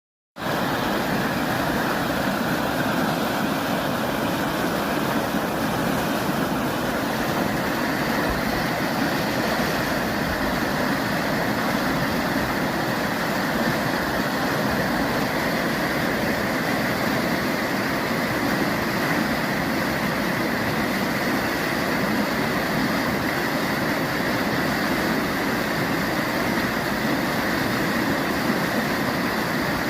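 Sea surf rushing steadily, an even roar of breaking water with no clear rise and fall of separate waves.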